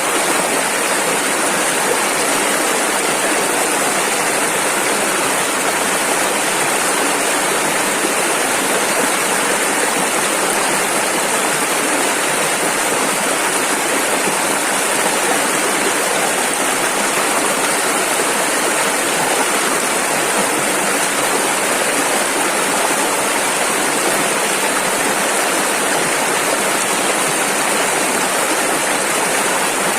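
Fast river water rushing over rapids: a steady, unbroken hiss of flowing water.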